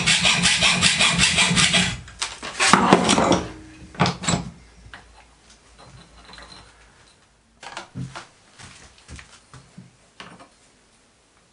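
Hacksaw cutting through a copper plate held in a bench vice, with quick, even strokes of about five a second that stop about two seconds in. A brief stretch of rubbing and two sharp knocks follow, then a few quieter knocks and clatters as the tools and the sawn copper disc are handled.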